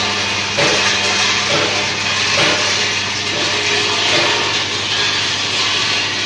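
Rotary sand-sieving machine running: the belt-driven gearbox and drive motor give a steady low hum under a continuous hissing rattle of sand and grit tumbling through the turning wire-mesh drum, with a few louder clatters in the first half.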